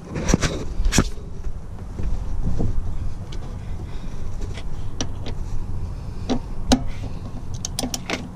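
Scattered sharp metal clicks and clinks from a hand socket ratchet and extension being handled and fitted onto an EGR valve bolt, with a quick run of clicks near the end. A steady low rumble runs underneath.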